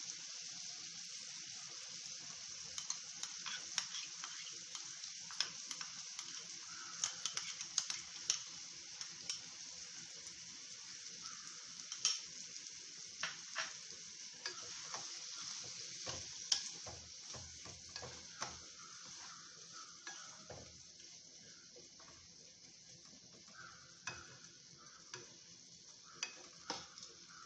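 Ridge gourd and potato pieces frying with poppy seed paste in a kadai, a steady sizzle. A spatula stirs and scrapes against the pan, making frequent sharp clicks. The sizzle gets a little quieter near the end.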